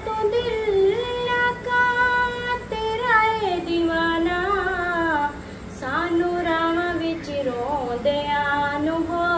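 A woman singing alone, holding long notes that slide and waver in pitch, with a short pause for breath about five seconds in.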